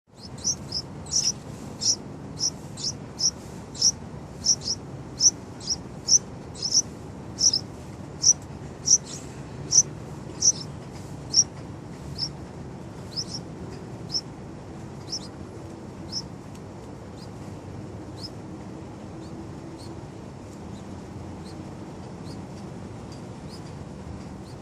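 Yellow-vented bulbul chicks calling: short, high-pitched chirps repeated about one or two a second. The chirps thin out after about twelve seconds, leaving only occasional faint ones, over a steady low background hum.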